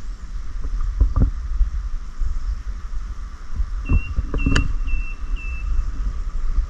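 Canoe paddling: dull knocks of the paddle and hull over a low rumble. Midway through, a bird calls four short, level, high whistled notes about half a second apart.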